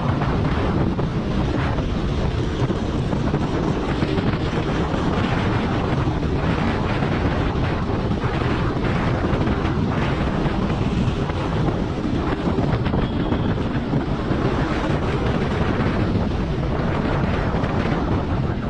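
Steady wind rushing over the microphone of a camera on a moving motorcycle, with the motorcycle's engine and road noise underneath.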